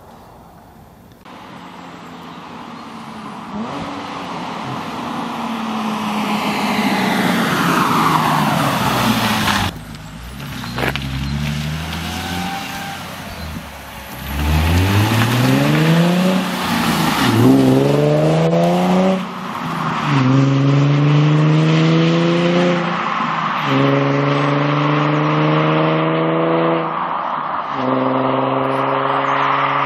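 Nissan 370Z's 3.7-litre V6 through an MCR Crimson titanium exhaust. It first passes by with its note falling in pitch. It then accelerates hard, revving up through several gears with a short break at each upshift.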